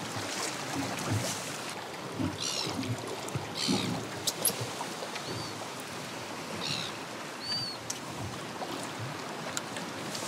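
Water lapping and slapping against the hull of a small boat, an even rushing wash, with a few short high-pitched seabird calls scattered through it.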